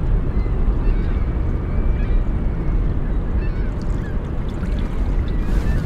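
Steady low rumble of wind buffeting the microphone on open water, with a few faint short bird calls in the distance.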